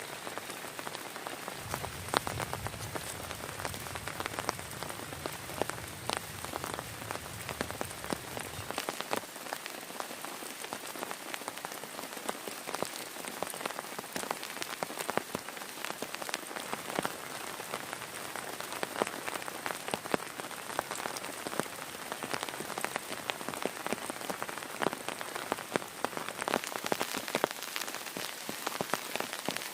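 Heavy rain falling on a surface, a steady hiss with many individual drops striking sharply throughout. A low rumble joins in a couple of seconds in and fades out about a third of the way through.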